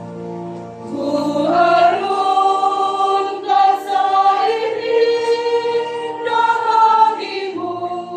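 Church choir singing a slow hymn in long held notes; about a second in the voices swell and rise in pitch.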